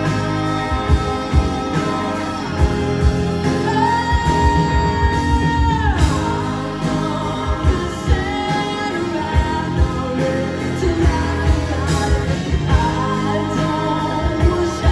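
Live rock band playing: a woman singing over electric guitar, bass, keyboard and drums, with a steady beat. About four seconds in a long note is held, then slides down near six seconds.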